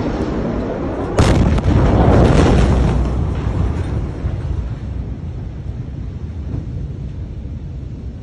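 The blast wave from the 2020 Beirut port explosion of stored ammonium nitrate reaching the phone: a sudden loud bang about a second in and a second jolt just after, then a loud rumble that slowly dies down over the next few seconds.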